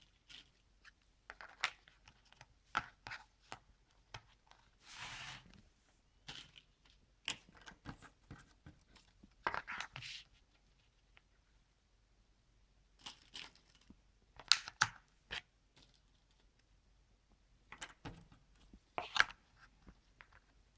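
Cardboard jigsaw puzzle pieces being handled and fitted into place: scattered light clicks and taps, with a few short scraping rustles, quiet gaps between.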